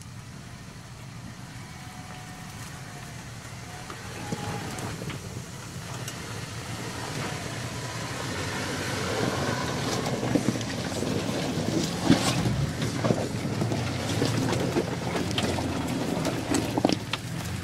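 Toyota Land Cruiser engine running at crawling speed down a rutted, rocky track, growing louder as it approaches and passes close by. From about halfway on, many sharp clicks and crackles of stones and branches under the tyres and against the body.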